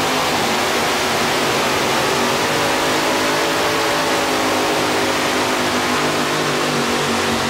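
Mini rod pulling tractor's engine running flat out under load as it drags the weight sled down the dirt track, a steady, loud, noisy engine drone holding its pitch.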